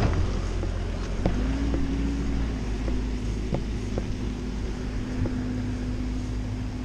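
Wind buffeting the microphone of a chest-mounted action camera, with a steady low motor hum in the background and a few light knocks.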